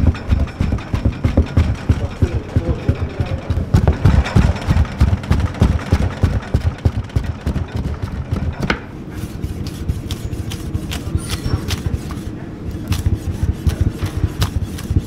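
Large broad-bladed mincing knife chopping meat and fat by hand on a wooden board, in rapid, steady strokes several times a second. About nine seconds in, after a sharp click, the chopping turns lighter and sparser as the blade works through red peppers.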